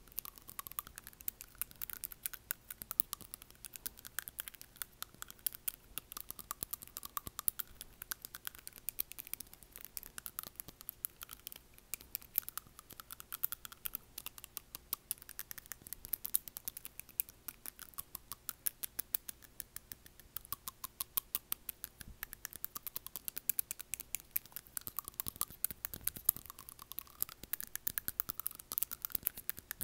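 Long acrylic fingernails tapping on front teeth: a rapid, uneven stream of small clicks.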